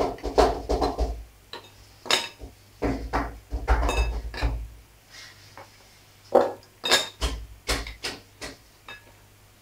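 Metal spoon scraping and knocking against a glass bowl and a glass cup while flour is scooped and measured, in irregular clusters of clinks and taps that thin out near the end.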